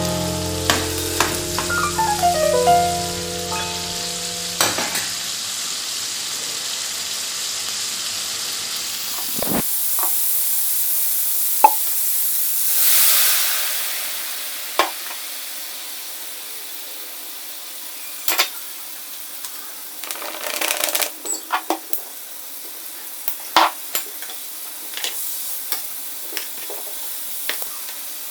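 Food sizzling in a frying pan, stirred now and then with a utensil that clicks against the pan; the hiss swells briefly about halfway through. Background music with mallet-like notes fades out in the first few seconds.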